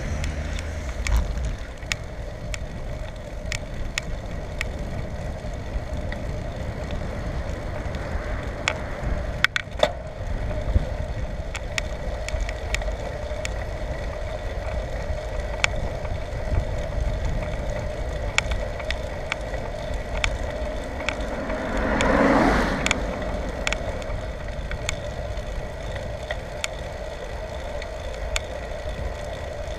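Riding a bicycle: steady tyre and wind noise with scattered small clicks and rattles, and one brief louder swell of noise about two-thirds of the way through.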